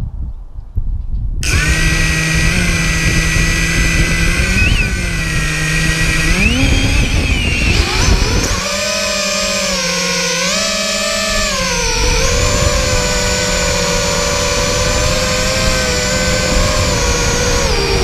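Electric motors and propellers of a small remote-controlled aircraft: a whine made of several tones that starts about a second and a half in, after a low rumble, then shifts up and down in pitch as the throttle changes.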